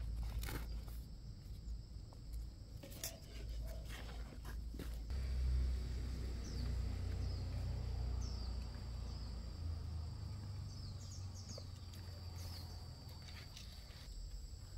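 Insects droning steadily at a high pitch, with a few short, falling bird chirps in the middle. Several sharp clicks and knocks in the first few seconds.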